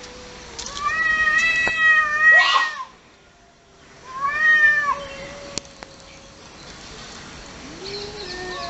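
Cats yowling at each other in a fight. A long drawn-out yowl starts about a second in and ends in a sharp hiss, a second yowl comes at about four seconds, and a lower drawn-out yowl follows near the end.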